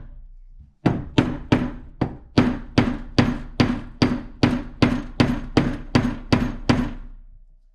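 Hammer blows on a flathead screwdriver wedged under a bicycle fork's crown race, a steady run of sharp metallic strikes about three a second, each briefly ringing, driving the seized race off the old steerer.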